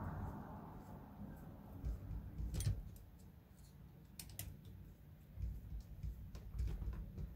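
Hex driver turning screws in a plastic RC crawler chassis: low handling rumble with a few sharp clicks, two of them close together about four seconds in.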